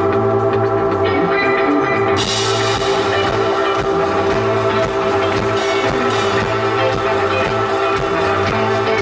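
Live band music without vocals: sustained chords over a steady drum beat, with the full kit and cymbals coming in about two seconds in.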